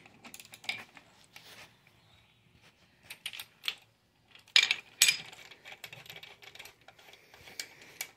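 Light metal clicks and clinks of a socket on an extension being spun by hand to run head bolts down on a Ford 352 FE cylinder head, with two louder metal clanks about halfway through.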